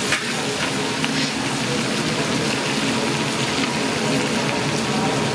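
Raw mango slices sizzling steadily in a large brass kadai, with a few light scrapes of a long metal spatula stirring them.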